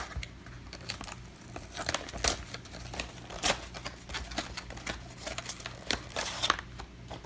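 Cardboard box and packaging of a Yu-Gi-Oh! structure deck being opened and handled by hand: a string of short crinkles, scrapes and clicks, a few louder ones along the way.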